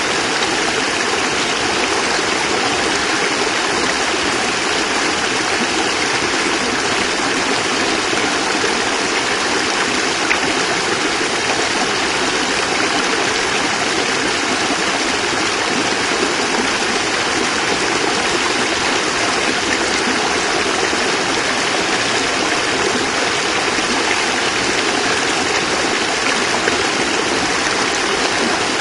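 Small cascade of water running over rocks, a steady rushing splash that goes on without change.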